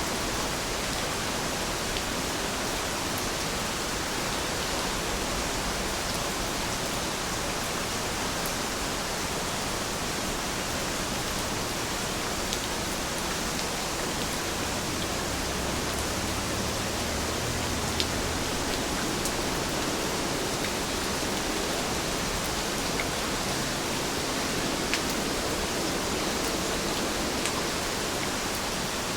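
Steady rain falling, an even hiss, with occasional sharp ticks of single drops striking nearby.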